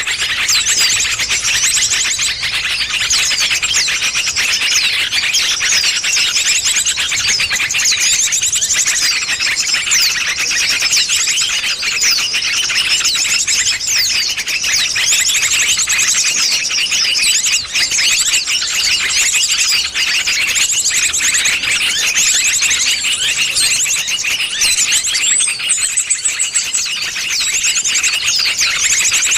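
Bird-lure recording: dense, continuous high-pitched chirping and rapid trills of small birds, loud and unbroken, played to draw wild birds in.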